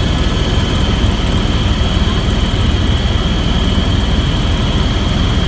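Steady cabin noise inside a light aircraft in flight: a loud engine drone with a constant high whine over it.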